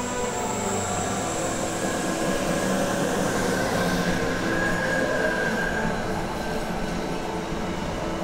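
ÖBB electric locomotives passing close by, running with a steady whine from their electrics over the rumble of wheels on rail, followed by a freight train of car-carrier wagons rolling past.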